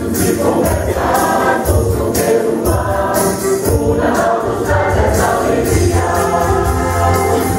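Mixed church choir singing a Christmas song in Portuguese, with instrumental accompaniment and a steady percussion beat.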